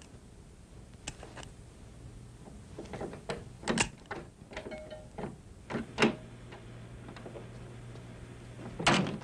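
Foley-performed door-lock sounds: a run of light metallic clicks and rattles as the lock and handle are worked, with heavier knocks about six seconds in and again near the end.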